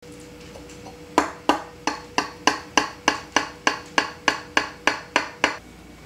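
A knife blade knocking against a glass baking dish as it cuts through lasagna: a quick, even series of about fifteen sharp knocks, roughly three and a half a second, each ringing briefly.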